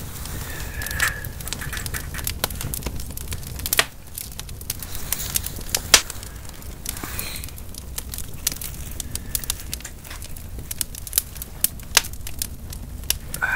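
Wood fire crackling with irregular sharp pops and snaps, the loudest about six seconds in, alongside soft rustling as raw sliced beef is laid into a pan.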